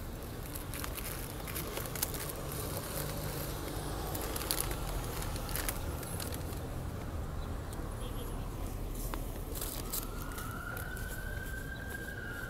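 Paper and wax paper crinkling as a date square is unwrapped and handled, over a low steady rumble of street noise. About ten seconds in, a single long high tone comes in and rises slowly.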